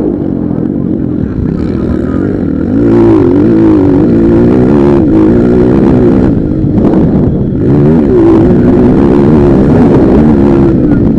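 Motocross bikes racing: engines running loud and continuous, pitch rising and falling over and over as riders open and close the throttle through the course.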